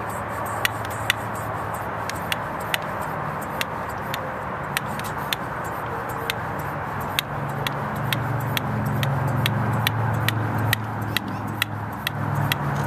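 Hand-pumped vacuum fluid extractor clicking at an even pace, about two clicks a second, as it draws transmission fluid up a thin tube into its bottle. A low rumble of freeway traffic underneath grows louder from about eight seconds in.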